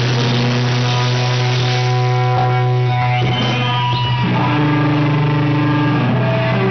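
A live grindcore band's amplified electric guitars holding long sustained notes. The held notes shift to a new pitch about four seconds in.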